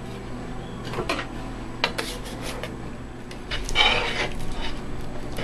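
A palette knife scrapes pigment paste across a glass slab in a few short strokes. Then, a little under four seconds in, a glass muller grinds the linseed-oil paste on the glass with a denser, gritty rubbing scrape.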